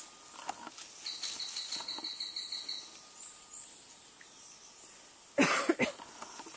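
Rainforest ambience: a high, rapid trill of about six pulses a second lasting nearly two seconds, then a loud, short burst of noise near the end.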